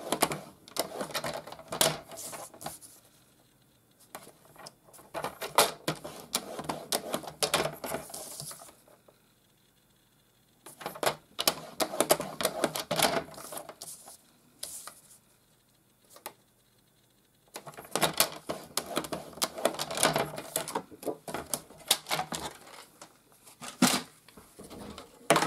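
Paper trimmer's scoring blade being run along its rail to score cardstock, a rapid clicking rasp in four bouts with short pauses between, one for each side of the card.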